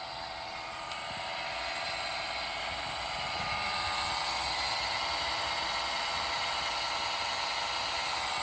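Hendriks 100-ton welding rotator's motorised roller drive running, a steady mechanical whine that grows louder over the first few seconds and then holds.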